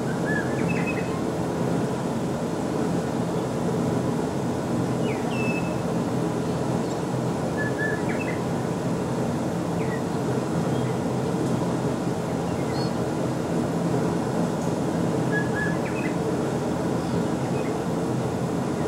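Steady low hum of an idling vehicle engine, with short bird chirps every few seconds.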